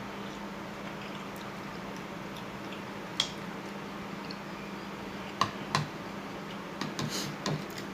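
Eating noises from a bowl of noodle soup: a few sharp clicks of utensils on the bowl and short wet slurping and chewing sounds, scattered and growing busier near the end, over a steady low hum.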